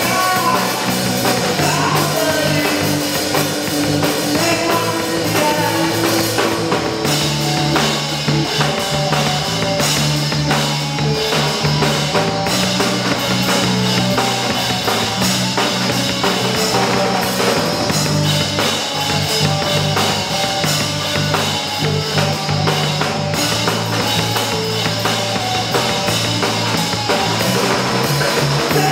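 A rock band playing a grunge song live at full volume: electric guitar, bass guitar and drum kit, with steady bass notes underneath.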